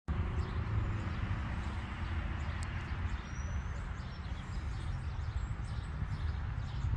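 Wind rumbling on the microphone, with a few faint bird chirps.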